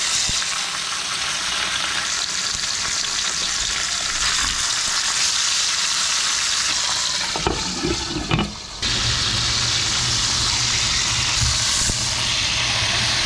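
Pieces of salted black sea bass frying in hot canola oil, sizzling steadily. A few knocks come around eight seconds in, with a brief dip in the sizzle, and then the sizzling carries on.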